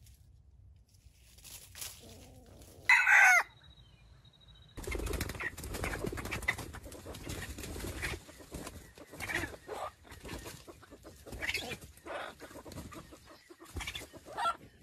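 Red junglefowl rooster: one short, loud crow about three seconds in, with a falling pitch. Then a long stretch of scuffling and wing-flapping noise with scattered clucks.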